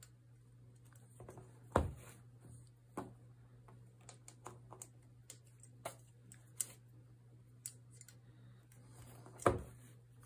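Scattered soft clicks and taps of hands working cotton loops over the pegs of a potholder loom, with two louder knocks, one about two seconds in and one near the end, over a steady low hum.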